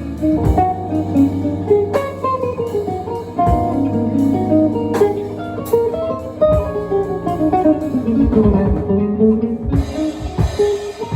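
Live band playing an instrumental: a guitar melody of quick, moving notes over a held low bass note, with drum-kit hits.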